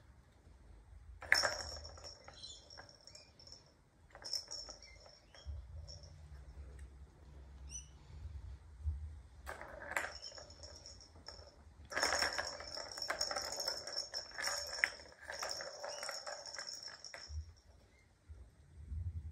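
Plastic balls rolling and rattling around the tracks of a stacked plastic ball-tower cat toy as kittens bat at them, in several bursts with a steady high whir. The longest run starts about two-thirds of the way through and lasts about five seconds.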